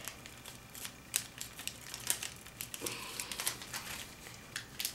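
A sheet of origami paper being folded and creased by hand: irregular crisp crinkles and small sharp ticks.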